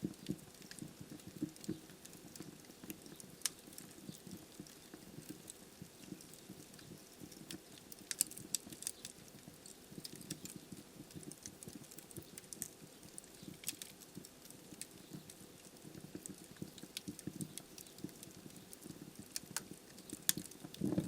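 Wood fire burning in a fireplace: a constant stream of small, sharp crackles and pops from the logs over a low flutter of flame, with a few louder pops scattered through.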